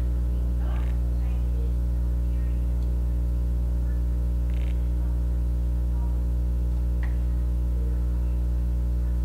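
Steady electrical mains hum with a stack of overtones, unchanging throughout, with a few faint brief clicks and rustles over it.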